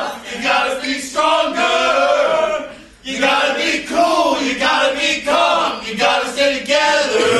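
A group of men singing together in held, chant-like phrases, with a brief break for breath about three seconds in.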